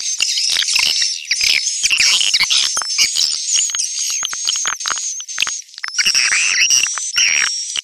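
Swiftlet lure-call recording: dense, high, rapid twittering chirps and clicks of edible-nest swiftlets over a steady high whistle, thin and without any low sound.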